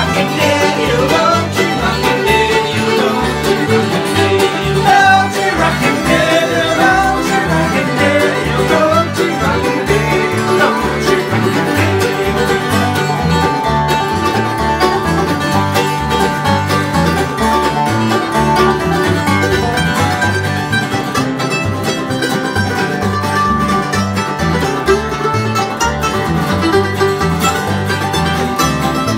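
Acoustic bluegrass string band playing a tune together: strummed acoustic guitars, mandolin and banjo over a steady upright bass beat.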